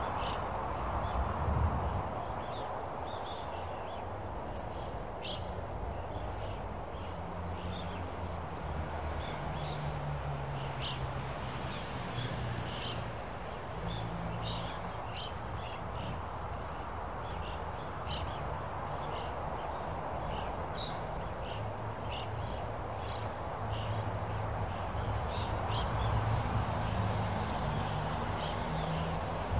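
Open-country outdoor ambience: a steady rush of wind with a low rumble beneath, and scattered short, high bird chirps throughout.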